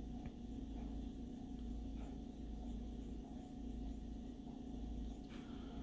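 Faint scratching of a Jinhao X450 fountain pen's medium steel nib on paper during handwriting: a few light strokes over a steady low hum.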